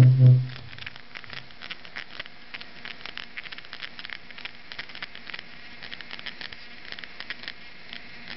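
Small 12 V DC peristaltic pump running slowly on PWM speed control, giving a fine, irregular crackling and ticking over a low steady hiss. It opens with a brief loud low hum that fades within the first half second.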